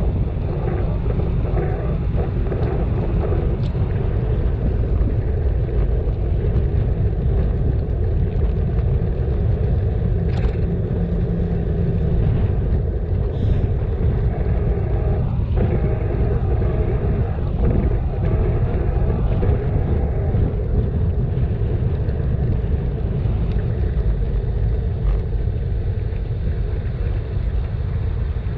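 Steady low rumble of wind on the microphone and road noise from a bicycle riding along, with a few faint clicks.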